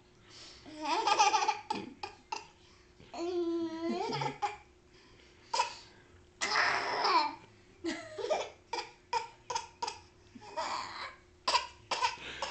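A baby laughing and babbling in a string of short vocal bursts, some gliding up and down in pitch, breaking into quick laugh-like pulses in the second half.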